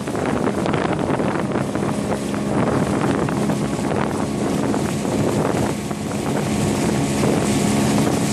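Yamaha 9.9 GMHS two-cylinder two-stroke outboard motor running steadily at speed, pushing a heavily loaded inflatable boat near the end of its break-in, with wind noise on the microphone.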